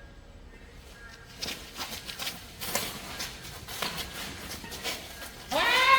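Badminton rally: a run of sharp racket-on-shuttlecock hits and quick shoe steps on the court floor over a few seconds, followed near the end by a loud man's shout.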